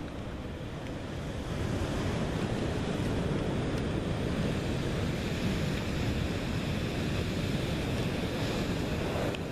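Ocean surf breaking on an outer reef edge, a steady wash of waves that grows louder about a second and a half in, with wind buffeting the microphone.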